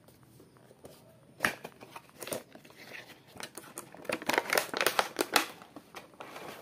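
Action-figure packaging being opened by hand: plastic and cardboard crinkling, rustling and clicking, starting with a sharp snap about a second and a half in and getting busiest near the end.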